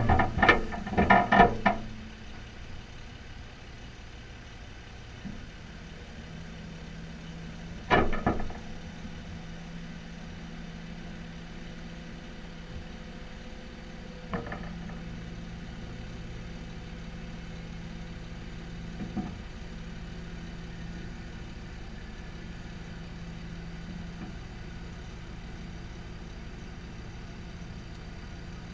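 Engine idling steadily, with loud clattering for the first two seconds, a sharp clatter about eight seconds in, and a couple of fainter clanks later.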